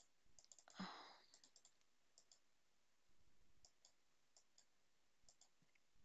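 Near silence with faint, scattered computer-mouse clicks, and a short breath about a second in.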